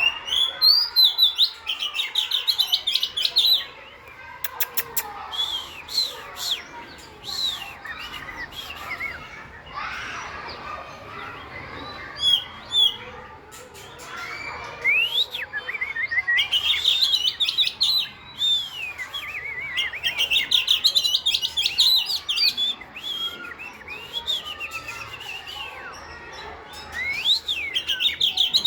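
Oriental magpie-robin singing a varied song of rising and falling whistles and rapid trills in repeated phrases, with a few sharp clicks between them.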